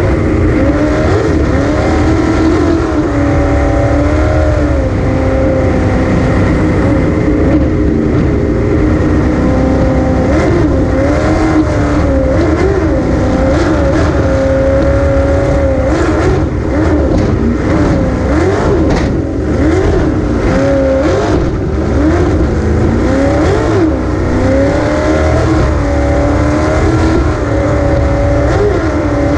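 Racing jet boat's engine running hard, heard from on board, its pitch rising and falling again and again with the throttle over a rush of wind and water.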